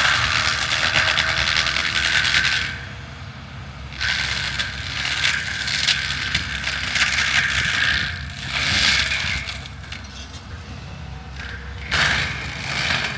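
Mulching cutter head on a land-clearing machine shredding trees and stumps, a harsh grinding and chipping that comes in several long bursts and eases off between them, over the steady drone of the machine's engine.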